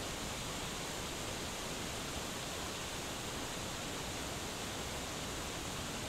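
Waterfall pouring over rock: a steady, unbroken rush of falling water.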